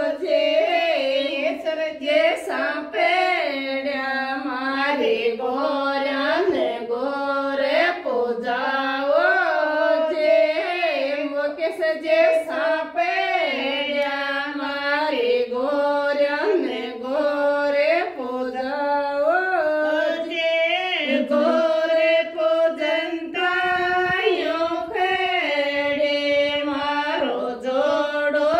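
Women's voices singing a devotional folk song together, unaccompanied, the melody held without a break.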